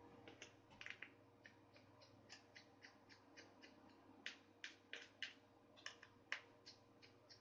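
Faint, irregular small clicks, about two or three a second, from a precision screwdriver turning out the small screws from a Samsung Galaxy S5's back frame, over a faint steady hum.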